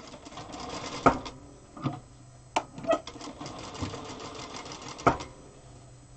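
Zoje ZJ9703AR industrial lockstitch sewing machine stitching in short stop-and-start runs, with several sharp clacks among the stitching. The stitching stops about five seconds in.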